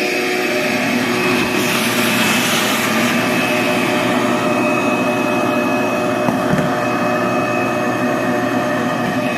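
16-gallon, 6.5 hp Shop-Vac wet/dry vacuum running steadily, a motor whine over the rush of air. The air rush briefly gets brighter and louder about two seconds in.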